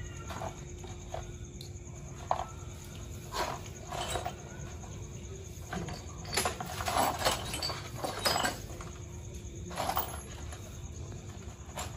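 Irregular metallic clinks and knocks of hand-handled metal parts or tools. About a dozen strike over a steady low background rumble, and they come thicker and louder from about six to eight and a half seconds in.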